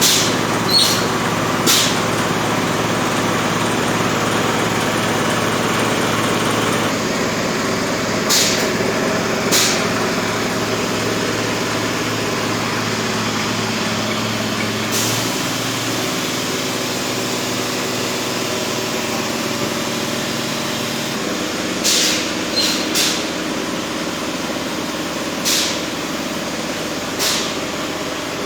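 Steady industrial machinery drone made of several held tones, with short bursts of hiss every few seconds, about ten in all.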